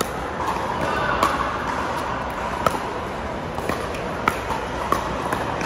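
Pickleball paddles striking a plastic pickleball in a rally: a series of sharp pops roughly a second apart over a steady background din.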